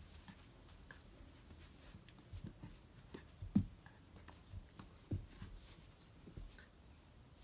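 Schnauzer puppy and ragdoll kitten play-fighting on carpet: soft, irregular thuds and scuffles of paws and bodies, the loudest about three and a half seconds in and another about five seconds in.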